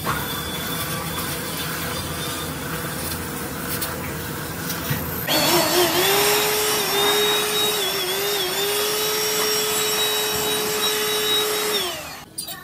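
A steady hiss of blowing air. About five seconds in, a hand-held electric blower switches on with a louder steady motor whine and rush of air, its pitch wavering slightly. Near the end the motor winds down with a falling pitch and stops.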